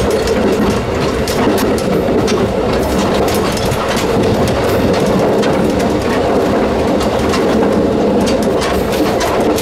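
Running noise of a WT3000 diesel railcar heard at the gangway between cars: a steady drone of engine and wheels on the rails, with frequent sharp clicks and rattles throughout.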